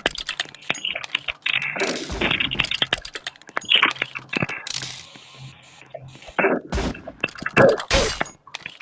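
A dense, irregular series of sharp clicks, cracks and short bursts of noise, with no steady rhythm.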